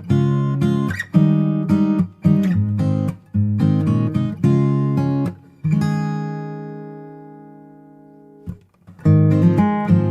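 Background music on acoustic guitar: strummed chords, one chord left ringing and fading for a few seconds past the middle before the strumming starts again near the end.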